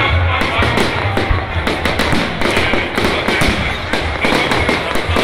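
A fireworks salute going off, many bangs and crackles in rapid succession, with music playing underneath.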